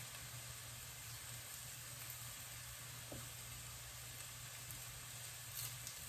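Diced vegetables (carrot, celery, onion) sautéing in fat in a stainless steel pan: a faint, steady sizzle over a low hum, with a couple of small clicks.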